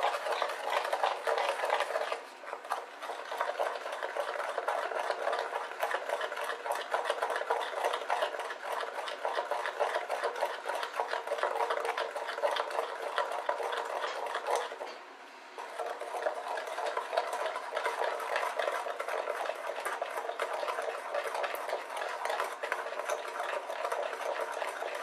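A metal utensil beating egg into a thick chocolate pudding batter in a glass bowl: rapid, continuous scraping and clicking against the glass. It stops briefly about two seconds in and again about fifteen seconds in.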